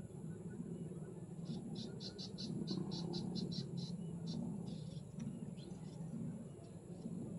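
A run of rapid high chirps, about four a second for about three seconds, from a calling animal, over a steady low hum.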